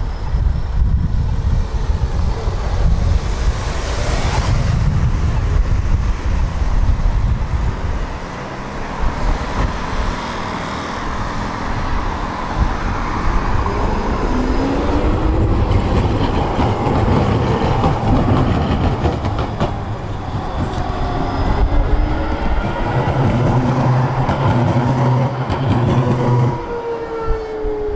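Warsaw tram running on its rails, heard from aboard: a steady rumble of wheels on track, with the electric traction motors whining in gliding pitches from about halfway. The whine falls in pitch near the end as the tram slows.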